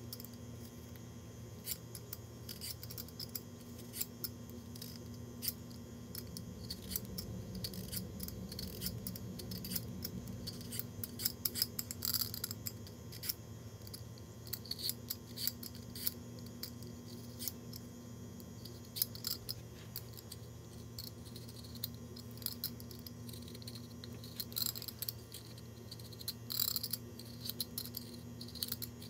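Irregular quick clicks, taps and light scrapes of hands working with kitchen utensils while preparing carrots, sped up to double speed, over a steady low hum.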